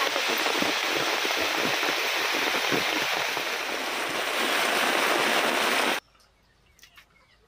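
Heavy rain pouring down, with water streaming and splashing off a plastic sheet roof. It cuts off suddenly about six seconds in, leaving only faint ticks.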